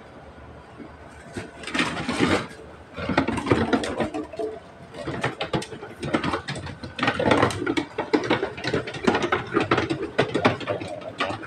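Irregular rattling and clattering clicks as garbage and cardboard are carried out, starting about a second and a half in and running on densely.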